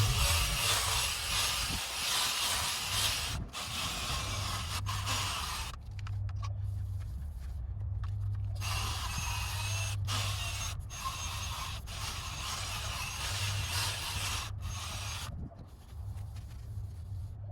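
Drill spinning an abrasive pad against a plastic headlight lens: a steady scraping hiss over a low motor hum. The scraping breaks off briefly several times while the hum carries on, as the pad lifts off the lens.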